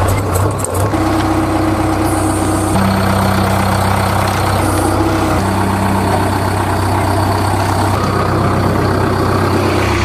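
Truck engine idling and running steadily: a loud low hum with held drones over it that change pitch every second or two. It is a dubbed engine sound effect, since the plastic toy trucks being pushed by hand make no engine sound themselves.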